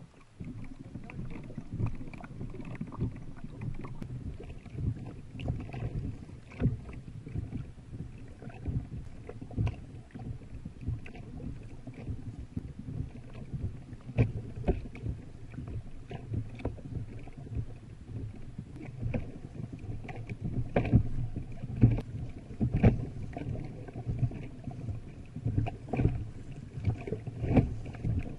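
Water rushing and slapping against the hull of a pedal kayak under way: a continuous rush broken by many sharp splashes.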